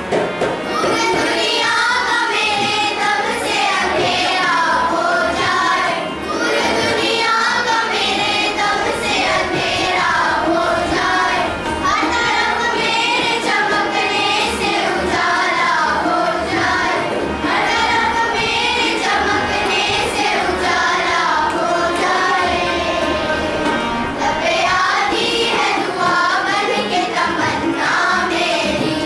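A choir of young schoolgirls singing a song together, voices moving in steady melodic lines without a break.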